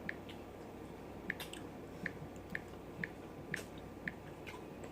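A person chewing food with wet lip-smacking clicks, about two a second, close to the microphone.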